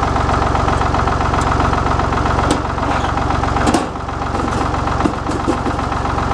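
Small Ford tractor engine running steadily at idle, with a few light clicks through the middle and a brief dip in the engine sound just before four seconds in.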